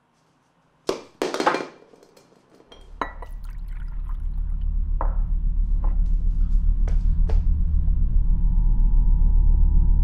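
A drink poured splashing into a glass, in two short bursts about a second in. Then a low rumbling drone comes in and swells steadily louder, with scattered clicks over it.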